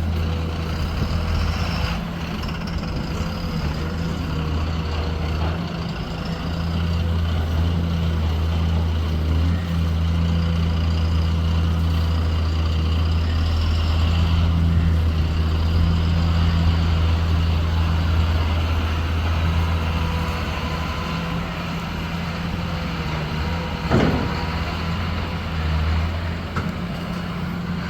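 Excavator's diesel engine running, its low hum swelling and easing with the work, with a high whine coming and going over it. A single sharp knock sounds near the end.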